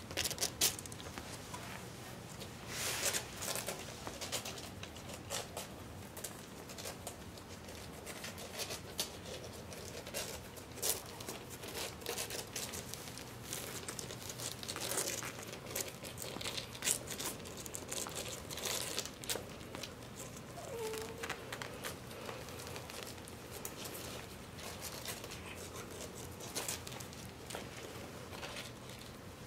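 Very young puppies scrabbling and shuffling on a fleece blanket: an irregular run of soft rustles, scuffs and little clicks from paws and bodies moving over the bedding, with one brief faint squeak about two-thirds of the way in.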